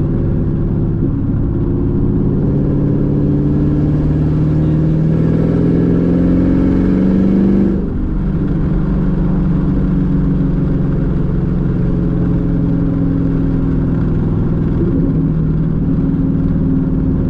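Chevrolet Camaro SS's 6.2-litre V8 engine and exhaust under acceleration: the pitch climbs steadily for several seconds, falls abruptly at an upshift about eight seconds in, then pulls on at lower revs, slowly rising.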